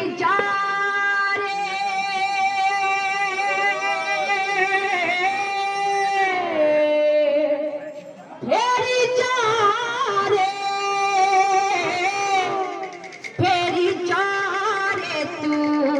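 Odia kirtan singing: a voice holds long, wavering notes in three drawn-out phrases, with short breaks about eight and thirteen seconds in.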